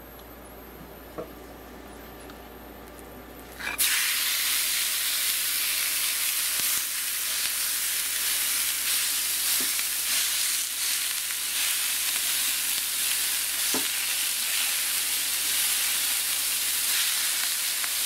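Raw ground beef sizzling in a screaming-hot cast iron pan. The sizzle starts suddenly about four seconds in as the meat goes in, then holds loud and steady, with a few taps and scrapes of a spatula spreading it out. The strong sizzle shows the pan is hot enough to sear.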